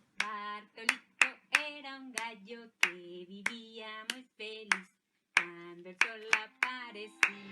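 A woman singing a children's song in short, quick syllables, with hand claps on the beat, about three a second, pausing briefly about five seconds in.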